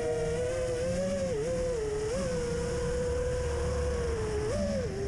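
FPV racing quadcopter's motors and propellers whining steadily. The pitch wavers with the throttle, dips briefly after about a second and a half, and swells then drops near the end.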